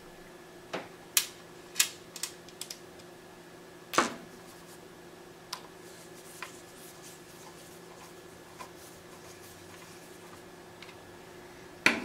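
Clicks and knocks of a screwdriver working against a DVR's sheet-metal case as a screw is driven through the underside: a run of sharp knocks over the first few seconds, the loudest about four seconds in, then faint scattered ticks. A sharp knock near the end as the screwdriver is set down on the wooden table.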